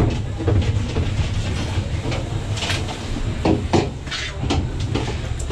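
Doppelmayr ten-seat detachable gondola cabin travelling up the haul rope: a steady low rumble, with a handful of sharp clicks and knocks from the cabin around the middle.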